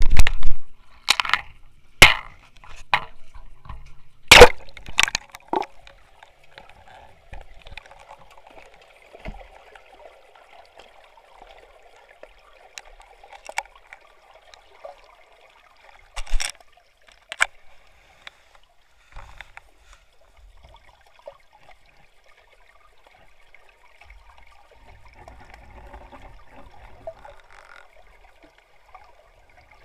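An underwater camera splashes into the water and knocks about in a run of loud sharp knocks as it goes under. After that there is faint, muffled underwater noise with a few isolated sharp clicks.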